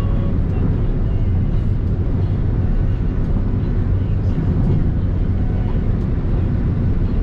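Steady road and engine rumble inside the cabin of a moving Mitsubishi Xpander Cross, an even low drone with no sudden events.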